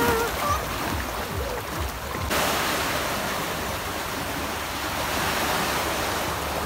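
Sea waves washing and breaking over a rocky shore: a steady rush of surf.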